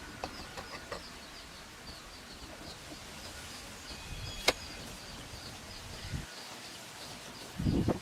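Outdoor ambience with a small creature's short, high chirp repeating rapidly and steadily, a single sharp click about halfway through, and a low thud near the end.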